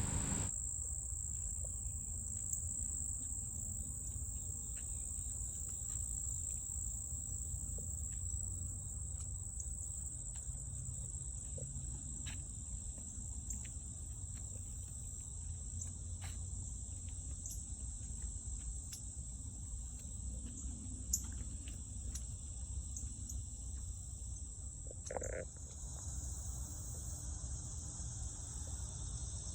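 Insect chorus, a steady high-pitched drone that runs without a break, over a low rumble. A short call stands out briefly about 25 seconds in.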